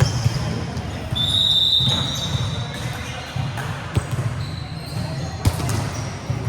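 Volleyball match sounds: the ball struck and bouncing on a hard court in a few sharp knocks, and a short high squeal a little over a second in.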